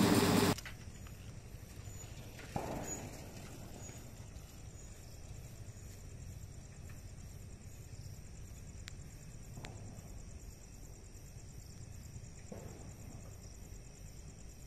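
Quiet night ambience: a faint, steady chirring of insects with a few soft knocks now and then.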